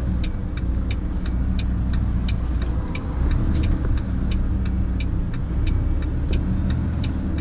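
Volvo FM 340 truck's diesel engine running with a low steady rumble inside the cab, while the turn-signal indicator ticks about three times a second as the truck turns around.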